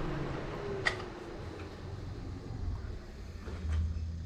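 A faint low rumble with one sharp click about a second in and a few faint ticks later on, just after the car has been switched off.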